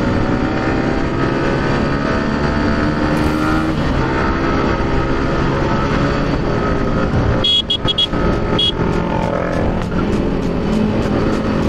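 Sport motorcycle engine pulling under throttle with wind noise, its pitch rising over the first few seconds and then holding steady at highway speed. A few short high beeps sound a little past halfway.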